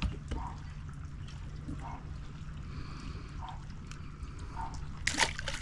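Water lapping and trickling against a boat hull, with soft gurgles every second or so. A short burst of sharp clicks comes near the end.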